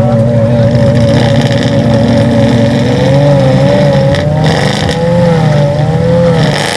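A car engine running, with a high wavering tone over it that swings more widely and slowly in pitch from about halfway through.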